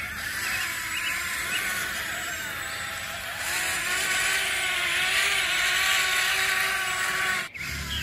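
Small electric motor of a toy vehicle whirring with a steady whine, getting louder and rougher about three and a half seconds in, then cutting off suddenly near the end.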